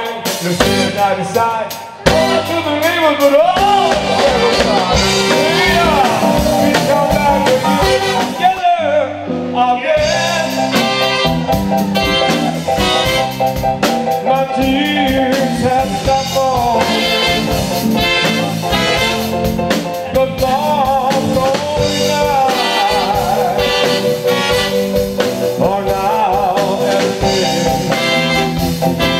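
Live band with saxophone and drums backing a male singer at the microphone. The band drops out briefly about nine seconds in and comes straight back.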